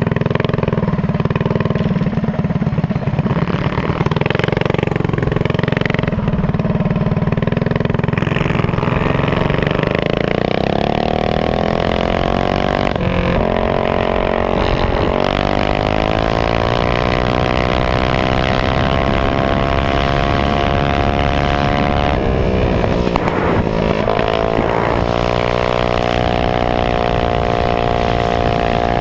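Minibike's Honda GX160 single-cylinder four-stroke engine running hard at high revs, heard from the bike itself. The pitch climbs about ten seconds in and holds high, drops briefly about two-thirds through, then climbs back.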